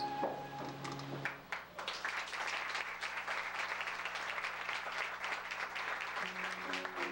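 Theatre audience applauding at the end of a song, the clapping starting about a second and a half in as the last held chord stops. A low held note lingers under the applause, and new chords come in near the end.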